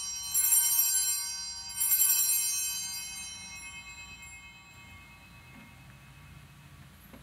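Altar bells rung twice, about half a second and two seconds in, each ring fading over a few seconds: the signal for the elevation of the chalice at the consecration.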